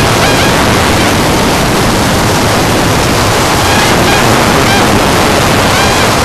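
Harsh noise music: a loud, steady wall of dense static-like noise covering the whole range from deep rumble to high hiss, with faint pitched tones showing through near the end.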